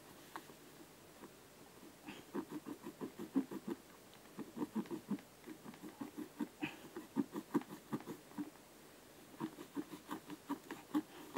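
A knife sawing and hacking through the synthetic upper of an Adidas Predator football boot: quick runs of short cutting strokes, about four or five a second, in three bursts with brief pauses between.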